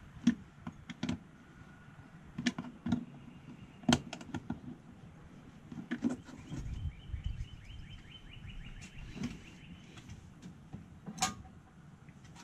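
Scattered sharp clicks and knocks of hands and a small screwdriver working the wire terminals on a solar charge controller in a truck's engine bay.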